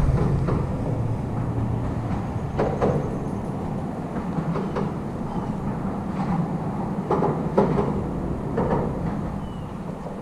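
Steady low rumble of traffic on the bridge overhead, with a few short clicks and rustles as hands unhook a small sunfish.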